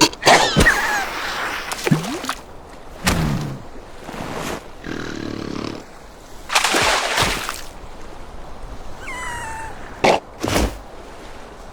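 Animal roars and growls mixed with splashing and several sharp knocks, in short irregular bursts.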